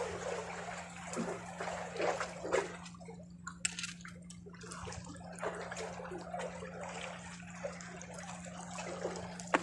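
Small sea waves lapping and sloshing against shoreline rocks, with scattered splashes and drips.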